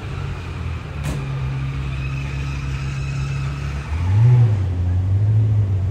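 Car engine running at low revs, with a brief blip of the throttle about four seconds in and a sharp click about a second in.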